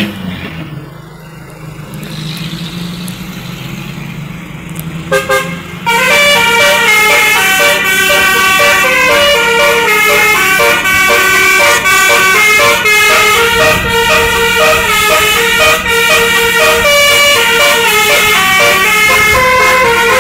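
Tour bus 'telolet basuri' multi-tone horn playing a tune as a fast run of changing notes, starting about six seconds in over a steady low engine hum. Before that the bus engine runs alone, quieter.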